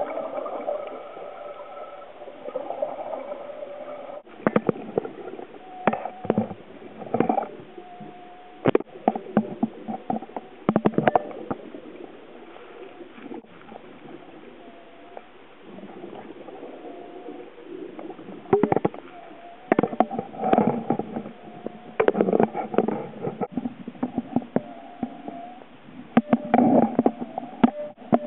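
Scuba diver breathing underwater through a regulator: bursts of bubbling and crackling exhaust bubbles every few seconds, with quieter stretches between breaths, heard muffled through an underwater camera housing.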